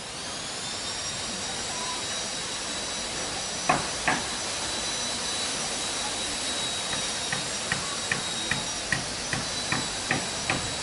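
Hammer driving nails into wooden planks on a boat's cabin side: two heavy blows, then about ten quicker, lighter blows at roughly two or three a second near the end. Behind it a machine runs with a steady hiss and a high whine that rises as it starts up.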